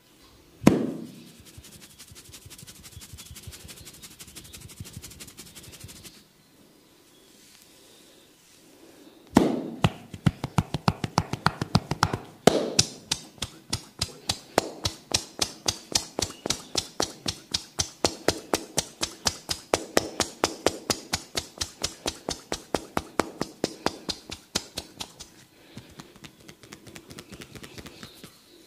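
Percussive massage strikes on the body. A single sharp knock comes about a second in, followed by a faint quick run of taps. After a pause, a long, even run of sharp taps follows at about five a second and thins out near the end.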